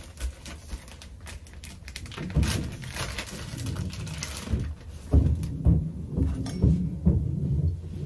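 Clear plastic bag crinkling and rustling as it is opened and handled, then a run of low knocks and bumps against the kitchen counter in the second half.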